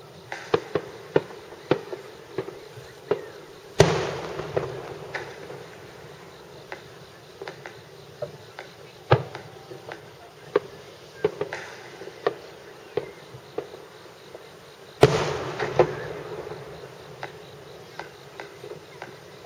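Large No. 10 (about 30 cm) aerial firework shells fired in rapid succession, bursting far off: a string of sharp pops and bangs. Two heavy booms, about four seconds in and about fifteen seconds in, each trail off in a long rolling rumble.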